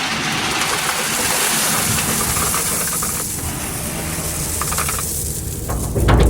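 Digger's diesel engine running steadily, with a loud hiss over it that stops about five seconds in; a loud low rumble starts near the end.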